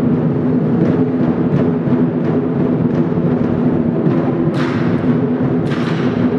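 Music with held low notes and a regular drum beat, about one and a half strikes a second, with two bright crashes in the second half.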